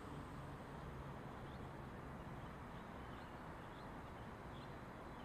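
Steady hum of road traffic, with a few faint, short bird chirps.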